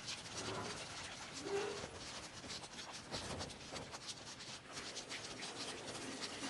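Rain falling steadily, with many small drips and splashes on wet pavement. A few faint, short, low calls sound about half a second and a second and a half in.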